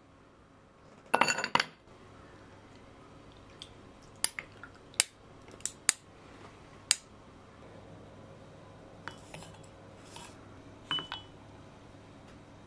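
Ice cubes dropped into a drinking glass: a quick clatter about a second in, then several separate sharp clinks of ice against glass.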